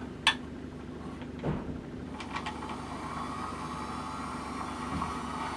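A sharp click, then a little over two seconds in the Pacific Bay power rod wrapper's wrap motor starts and spins the chuck, running with a steady, quiet hum and whine.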